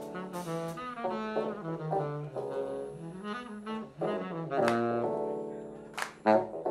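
Live jazz-funk band playing: a saxophone carries a melodic line over a drum kit, bass and keyboard, with sharp drum hits through it.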